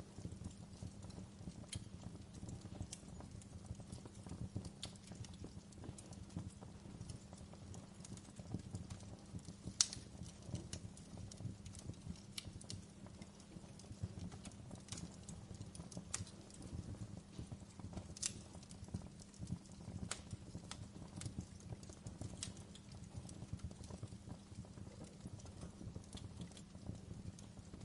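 Wood fire crackling in a fireplace: irregular sharp pops and snaps over a steady low rumble, with one louder pop about ten seconds in.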